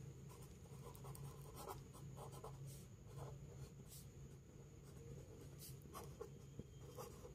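Faint scratching of a pen writing on lined notebook paper, in a series of short strokes.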